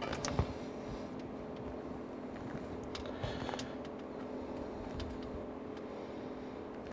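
Faint handling noise as an RPM sensor is turned by hand into an engine's bell housing: a few light clicks and taps of metal against fingers and threads, the sharpest one near the start, over a steady low hum.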